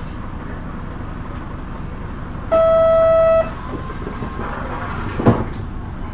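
Diesel city buses running at low speed with a steady low rumble. About two and a half seconds in, a single flat horn-like beep sounds for just under a second, and a short sharp knock follows about five seconds in.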